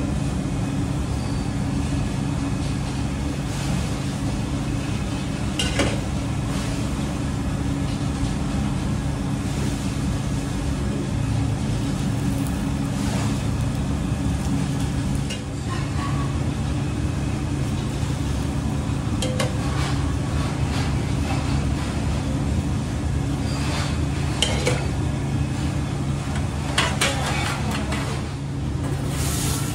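Large iron tawa with a giant paratha cooking, under a steady low mechanical hum. A metal spatula scrapes and clinks on the griddle a handful of times, about six seconds in, then around the middle and again near the end.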